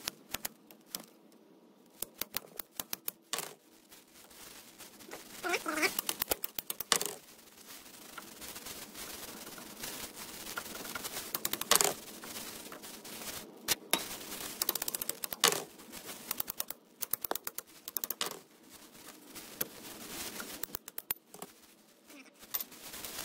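Irregular metallic clicks and knocks, with a few sharper strikes, as a parking brake cable end is knocked and worked loose from its rusted steel bracket. Scraping and rattling come between the knocks as the cable end is twisted free.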